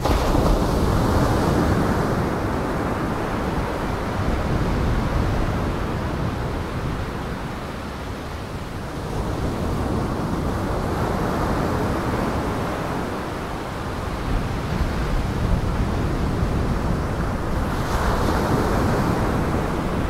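Storm waves breaking and gale wind: a steady rush of noise that swells and eases a few times.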